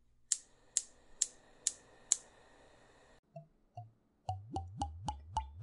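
Gas stove burner igniter clicking five times, about two clicks a second, over a steady hiss of gas, which cuts off about three seconds in. About four seconds in comes a quick run of short rising bloops, about four a second.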